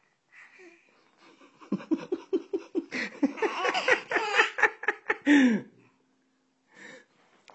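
Hearty laughter in a rapid run of pulses, about five a second, building for several seconds and ending on one loud note that falls in pitch.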